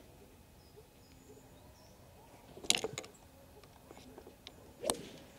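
Sharp clicks of a golf club striking golf balls: a loud crisp click about two and a half seconds in, followed by a few lighter ticks, and a second sharp strike near the end. Faint bird chirps in the background.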